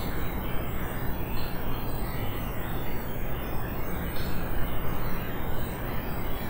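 Steady background hiss with a low hum underneath, no distinct events.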